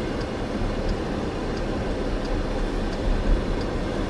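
Steady low rumble with a dense hiss over it, and a faint high tick repeating about every 0.7 seconds.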